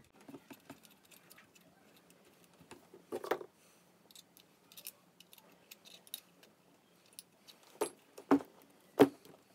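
Small clicks, taps and clacks of a paintball marker's metal body and fittings being handled during reassembly, with a louder knock about three seconds in and a few more near the end.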